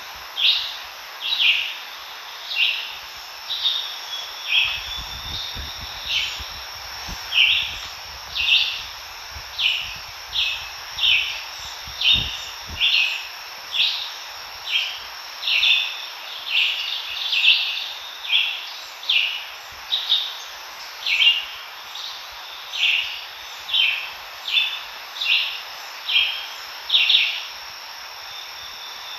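A short chirping call repeated over and over, about one and a half times a second, over a steady high-pitched insect drone.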